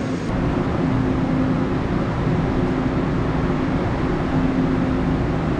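Taiwan Railway EMU1200 electric multiple unit standing at the platform, its onboard equipment humming steadily with a couple of held low tones.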